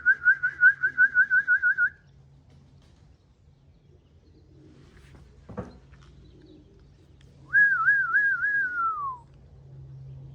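A person whistling to call racing pigeons in to land at the loft: a fast warbling whistle for about two seconds, then after a pause a second warbling whistle that slides down in pitch at the end. A single sharp click falls between them, over a faint low hum.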